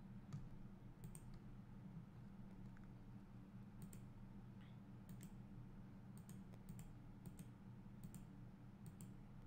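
Faint computer mouse button clicks, about a dozen scattered irregularly and bunched near the end, over a low steady hum.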